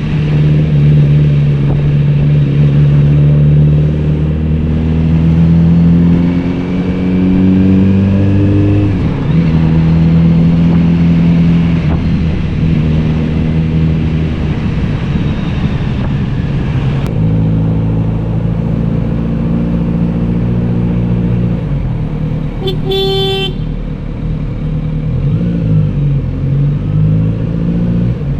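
Kawasaki Z900RS inline-four engine and exhaust under way, its pitch climbing steadily for the first nine seconds, dropping sharply as the revs fall, then running at steadier, lower revs. A short horn toot sounds about 23 seconds in.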